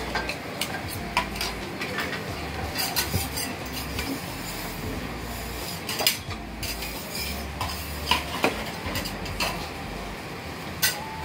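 Metal spatulas scraping and clattering on a steel teppan griddle: irregular sharp clinks and knocks over a steady background of kitchen noise.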